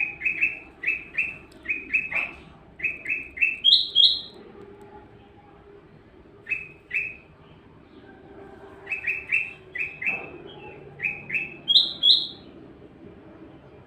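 Tilang emas bird singing: quick runs of two to four short, sharp chirps, several phrases ending in two higher-pitched notes, with a pause of about two seconds midway.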